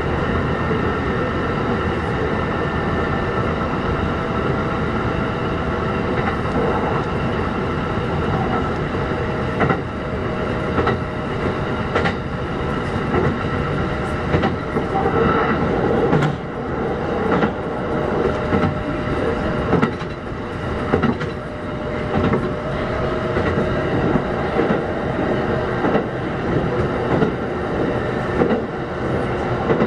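Kintetsu 1201 series electric train running between stations, with a continuous rumble and a steady whine. From about ten seconds in, rail-joint clacks come roughly once a second.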